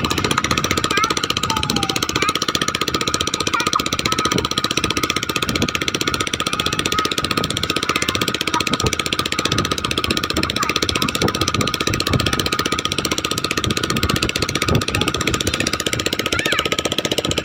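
Strong wind buffeting the microphone: a steady rushing rumble with no let-up.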